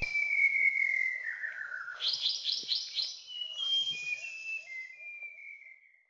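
White-browed shama singing: a long whistle sliding down in pitch, then about two seconds in a quick run of about six higher notes, then a string of short whistles stepping down toward the end.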